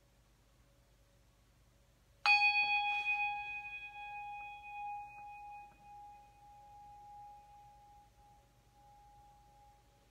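Brass Tibetan hand bell struck once about two seconds in, ringing out clearly with several overtones above a strong main tone and fading slowly over about eight seconds.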